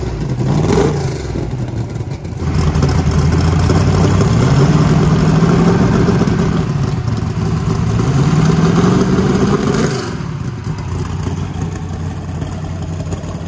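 Steve Morris 540-cubic-inch twin-turbo big-block V8 running on its first start-up, its tune still rough. It is revved up a couple of seconds in, held higher, and raised again, then drops back to idle about ten seconds in.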